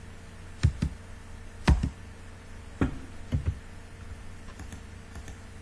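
Computer keyboard and mouse clicks: four separate sharp clicks about a second apart, then a few faint light ticks near the end, as a distance is entered for a CAD offset command.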